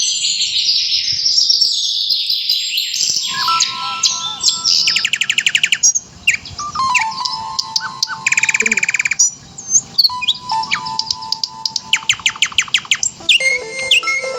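Songbirds chirping: a dense chatter of many birds for the first few seconds, then separate rapid trills every few seconds, over soft music with steady held tones.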